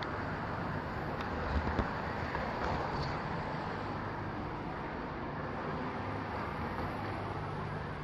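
Distant aerial fireworks heard from far off: a steady background rumble of traffic and open air, with two muffled booms close together about a second and a half in.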